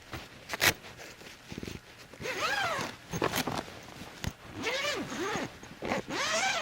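An animal's calls: three drawn-out whines, each rising and then falling in pitch, after a short zip-like rasp about half a second in.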